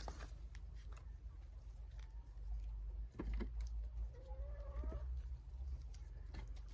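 A chicken giving one drawn-out cluck about four seconds in, faint and in the background, with a few short knocks a little before it.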